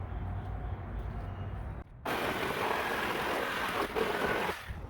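Power saw cutting through a crate board: a steady harsh noise that starts abruptly about two seconds in and stops abruptly near the end, after a low rumble.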